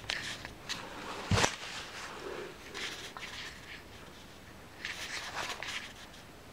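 Handling noise from setting a camera in place: scattered light clicks and rustling, with one sharp knock about a second and a half in.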